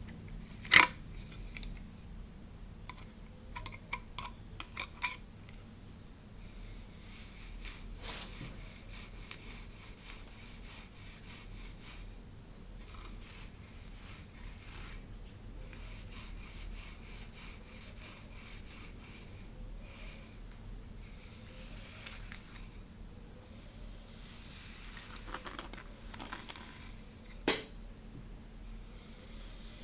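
Close-miked hair being stroked through, brushed or rubbed by hand, giving soft, high rubbing hisses in repeated strokes with short pauses. A sharp click about a second in and another near the end, with a few small ticks in between.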